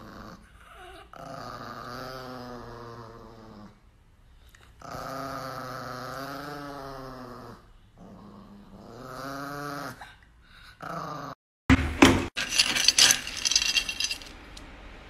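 Chihuahua growling: three long, wavering growls of two to three seconds each. Near the end, a louder clatter of a metal scoop digging into dry kibble.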